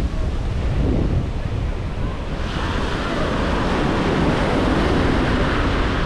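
Atlantic surf breaking and washing up the sand, with wind buffeting the microphone. The hiss of foaming water swells about two and a half seconds in.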